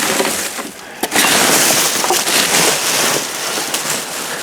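Rustling and crunching as trash is rummaged through and moved around in a dumpster: a dense, noisy clatter that grows loud about a second in and eases off near the end.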